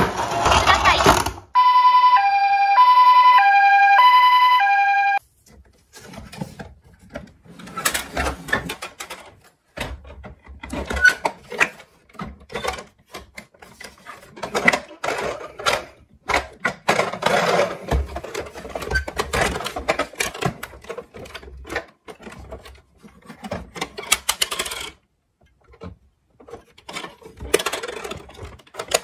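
A loud noise burst at the very start, then an electronic hi-lo toy siren, two tones swapping about twice a second for a few seconds before cutting off sharply. After it, plastic toy vehicles clatter and rustle faintly as they are handled in a cardboard box.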